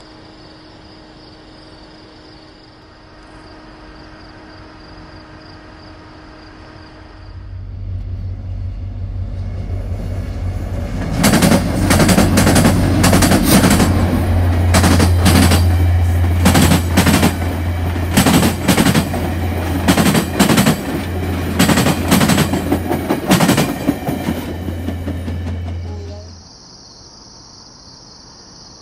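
VIA Rail passenger train led by EMD F40PH-3 diesel locomotives passing close by. A steady low diesel drone builds in, then its steel wheels clack loudly and irregularly over the track joints for about thirteen seconds before the sound cuts off. Faint insect chirring can be heard before the train arrives and after the cut.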